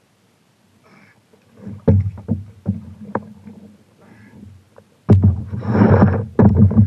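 A paddle knocking against a stand-up paddleboard, a few sharp clacks, then two loud splashing paddle strokes through the water about five seconds in, the loudest part.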